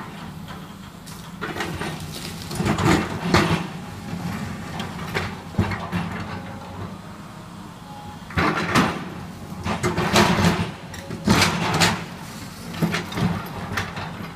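An excavator's diesel engine running steadily while the machine works a pile of demolition debris, with repeated bursts of crunching, clattering and scraping as wood and rubble are broken and dragged.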